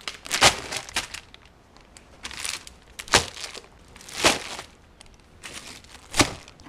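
Plastic bait bags crinkling and knocking against a clear plastic storage tote as they are handled and packed, in a string of irregular rustles and sharp taps.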